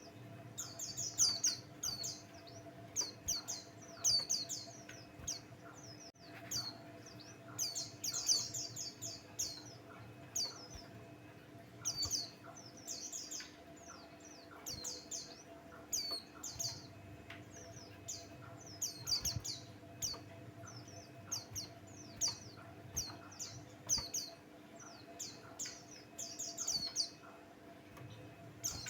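White-eye (pleci) singing: quick, high twittering chirps and trills in repeated bursts, over a faint steady low hum.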